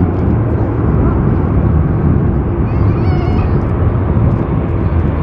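Boeing 787-9 Dreamliner's jet engines running at taxi power as the airliner turns on the ground: a steady low rumble with a hiss over it.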